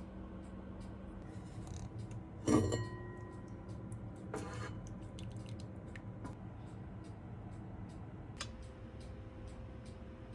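Kitchenware being handled: a sharp ringing clink about two and a half seconds in, a second ringing clink about four seconds in, and small taps throughout over a steady low hum.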